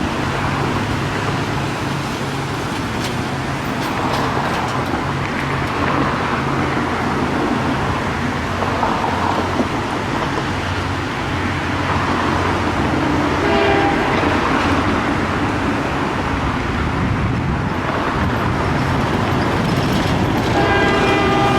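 Diesel freight locomotive passing at full power, its engine throbbing low and steady over the rumble of the train. A horn sounds near the end.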